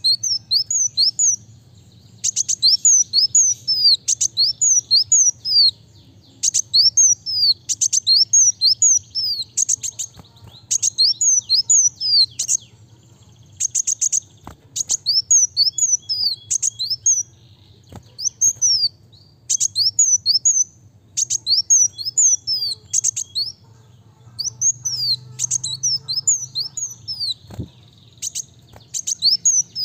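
Caged kolibri wulung sunbird singing fast and without let-up: phrases about a second long of rapid, high-pitched notes that each fall sharply, repeated over and over with only brief pauses between them.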